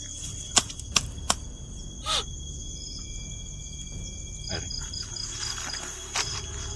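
Night insects, crickets, chirring steadily at a high pitch. Three sharp clicks or knocks come within the first second and a half, and a short falling squeal follows about two seconds in.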